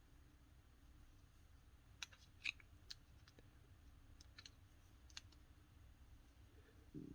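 Near silence broken by a handful of sharp clicks and light taps, small parts of a VCR tape-transport mechanism being handled, with a brief low buzz at the very end.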